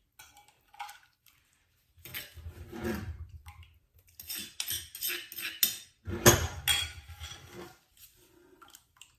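Metal spoon clinking and scraping against a bowl of thin, liquid sauce, in irregular bursts with short pauses, loudest about six seconds in.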